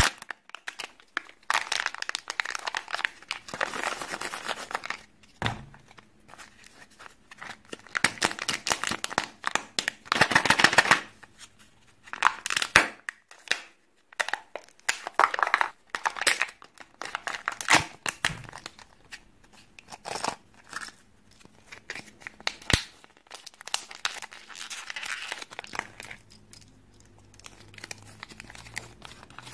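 Kinder Surprise egg foil and plastic wrappers crinkling and tearing as they are peeled and unwrapped by hand, in repeated bursts, with a few sharp clicks.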